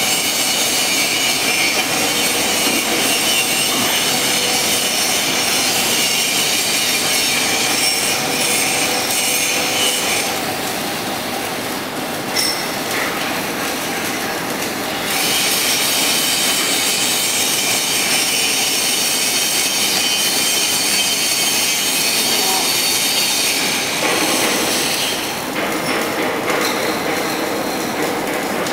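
Welding column-and-boom manipulator's drive motors and gearing running, a steady mechanical noise with a high-pitched whine and squeal that shifts in level a few times.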